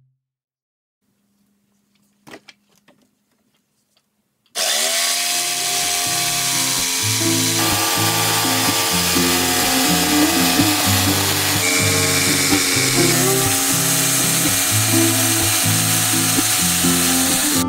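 Chicago Electric electric jigsaw cutting through plywood. It starts about four and a half seconds in after near silence and a few faint clicks, then runs steadily with its low pitch stepping up and down as the blade works through the cut.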